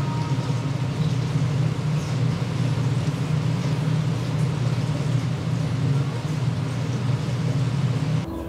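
Hot water poured from an electric kettle in a steady stream over the skin of a raw fish fillet, splashing through a plastic basket into a sink, to scald the skin. The pouring stops abruptly near the end.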